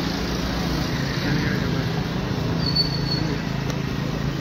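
Indistinct murmur of many people talking over a steady low hum, with a brief faint high tone about three seconds in.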